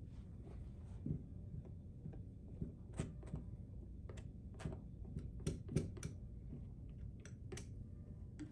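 Palette knife tapping and dabbing thick oil paint onto a stretched canvas: a scatter of light ticks and taps, the loudest about six seconds in.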